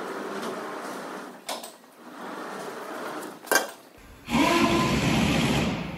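Clinking and knocking of metal work on a hoisted truck engine, with two sharp knocks. Near the end comes a loud rushing hiss lasting about a second and a half.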